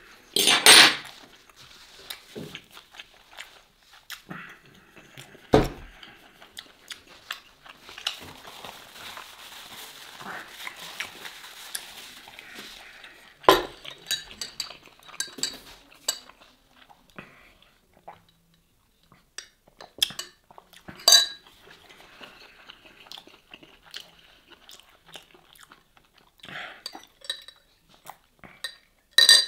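A metal straw clinking against ice cubes and the sides of a glass mug of iced cola as it is stirred, in a run of sharp, ringing clinks, with knocks of cutlery on a wooden board and sipping through the straw.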